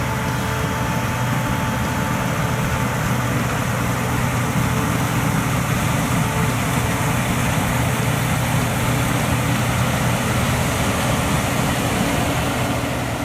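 Heavy farm machinery engine running steadily at a constant pitch, with a low hum under an even mechanical noise.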